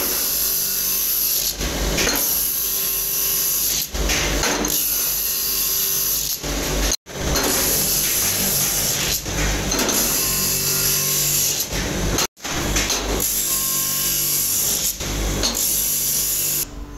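Electric bench grinder running, its wheel grinding the edge of a cast aluminium motorcycle brake shoe held against it: a loud, steady rasping hiss. It cuts off abruptly twice and at once comes back.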